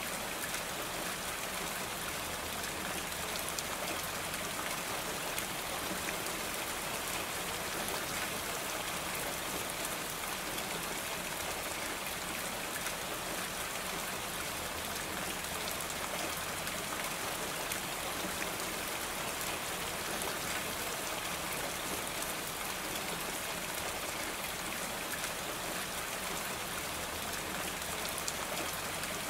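Steady rain falling on a roof: an even hiss of many small drops that neither builds nor eases.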